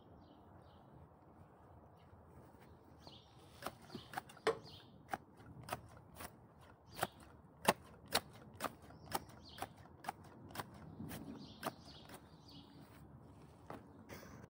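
Hand grass shears snipping through grass blades: a run of sharp clicks, about two a second, starting a few seconds in and stopping shortly before the end.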